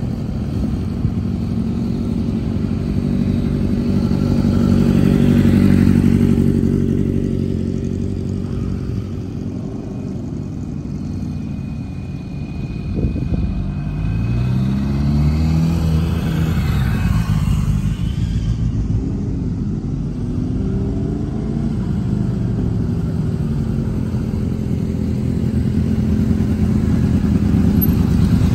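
Several sport motorcycle engines running at walking pace, held near idle with small throttle changes. The engine note rises and falls in pitch in the middle, and it grows louder near the end as one bike idles close by.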